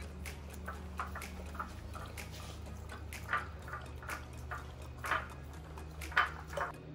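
Alaskan malamute licking and lapping up yogurt: irregular wet smacks and licks, with a few louder ones in the second half.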